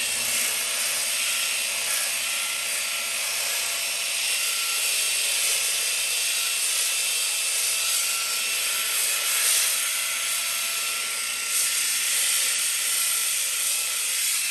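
Electric power sander running steadily on the wooden deck planking: a constant hiss with a steady high whine over it.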